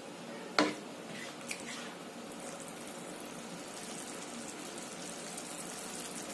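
Thick egg masala curry gravy simmering in a pan with faint, steady bubbling. A spoon knocks against the pan once, about half a second in, and a small click follows about a second later.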